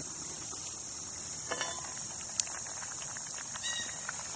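Steady high chirring of crickets, with a few short metallic clinks as the lid of a cast-iron Dutch oven is lifted off and handled, about one and a half seconds in and again near the end. There are also a couple of sharp clicks.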